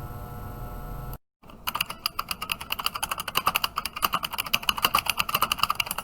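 Fast typing on a GK61 mechanical keyboard with stock Gateron Yellow linear switches and KPR keycaps: a quick, dense run of key clacks. It starts about a second and a half in, after a steady hum breaks off in a short cut.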